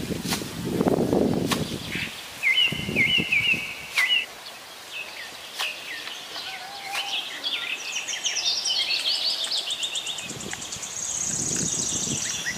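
Birds chirping and singing, with a long high trill near the end. A few sharp knocks in the first half come from a blade striking the soil of the pond bank, over a dull low noise of work in the shallow water.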